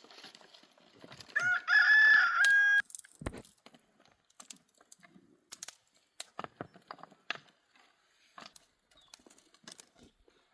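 A rooster crowing once, a single pitched crow lasting about a second and a half. It is followed by scattered light clicks and taps, with one sharper knock just after the crow.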